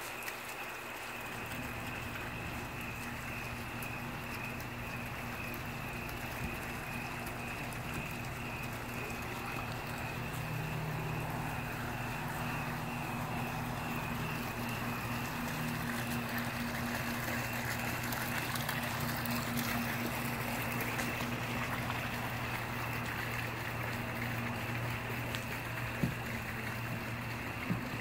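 Small backyard rock water feature trickling steadily under a steady low hum and a high, pulsing trill. A couple of sharp pops from the wood fire near the end.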